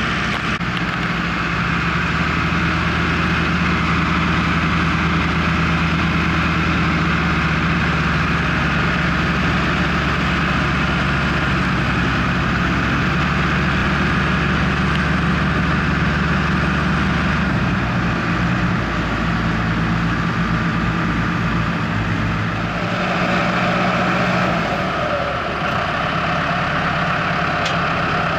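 Valtra tractor's diesel engine running steadily together with the Grimme potato harvester's machinery. The engine note drops about two-thirds of the way through, and a higher mechanical whirr joins for a few seconds near the end.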